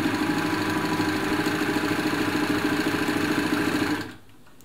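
Elna Lotus SP sewing machine running steadily at speed, sewing a narrow zigzag satin stitch, then stopping abruptly about four seconds in.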